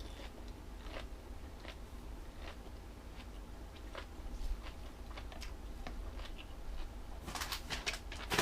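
Close-up chewing of crunchy jellyfish salad: irregular crisp crunches and wet mouth clicks, with a denser run of crunching near the end.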